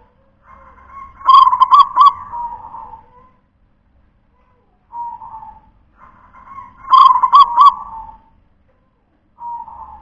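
Zebra dove (perkutut) cooing its song twice. Each phrase starts soft, then runs into a quick string of loud, clipped notes and trails off in a coo. A short soft coo falls between the two phrases, and another comes near the end.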